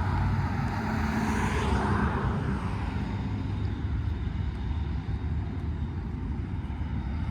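Car moving slowly, a steady low engine and road rumble heard from inside the cabin, with a brief swell of noise about one to two seconds in.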